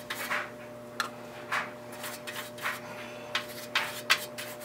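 A brush working Naval Jelly rust dissolver gel onto a rusted metal part: a series of short scratchy brush strokes, irregular, about one or two a second.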